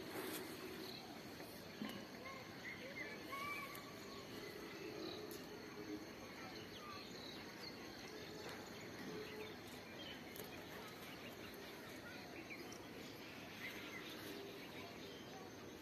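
Faint rural outdoor ambience: scattered short bird chirps over a steady, faint, high-pitched hum.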